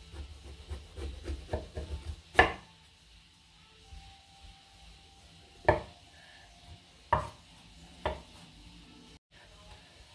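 Chef's knife slicing lengthwise through a whole eggplant on a bamboo cutting board. A quick run of small cutting sounds comes first, then four sharp knocks of the blade meeting the board: a loud one about two seconds in and three more spread between about five and eight seconds.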